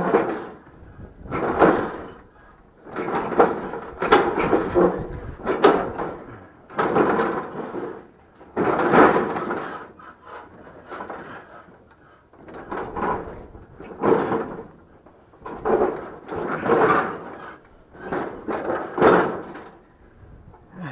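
Heavy object being shoved and wrestled, scraping and knocking in a string of irregular pushes, one every second or two.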